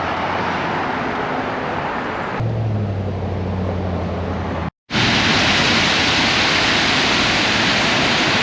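Steady rush of white water from the broad man-made waterfall on the Snake River, heard in short cuts. A low steady hum joins it for a couple of seconds in the middle, and after a cut near the middle the water is louder and more hissing.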